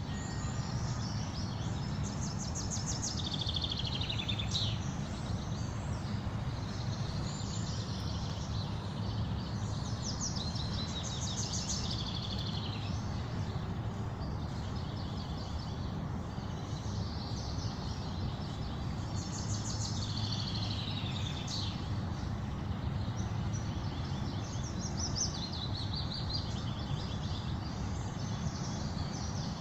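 A songbird singing a trilled phrase of about two seconds that slides downward in pitch, repeated about five times at gaps of several seconds, over a steady low background rumble.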